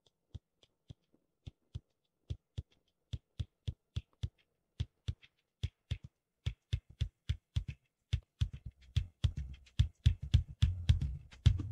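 Isolated drum kit track: single low drum strokes, quiet and spaced out at first, coming faster and louder as it goes, with a low rumble building beneath them from about eight seconds in.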